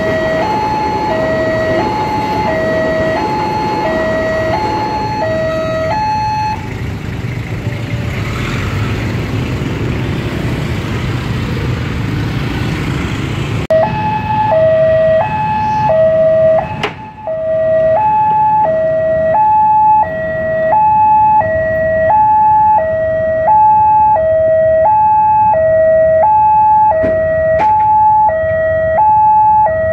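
Railway level-crossing warning alarm: an electronic two-tone signal alternating between a higher and a lower tone, each held about two-thirds of a second. About six seconds in it gives way to the low rumble of a passing train. Halfway through it starts again abruptly and louder.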